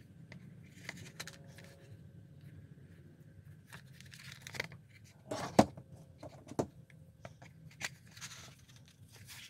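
Pliers being slid in and out of a dry leather pliers pouch: leather scraping and rubbing, with sharp clacks of the metal pliers. The loudest clack comes about five and a half seconds in, with another a second later.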